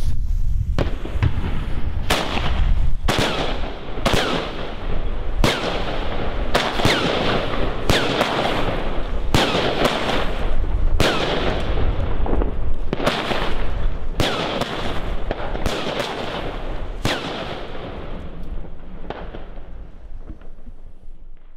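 A Geisha 'Geiko' 10-shot firework cake firing: a string of sharp bangs about every one to two seconds, with a dense crackle filling the gaps between them. The crackle thins out near the end.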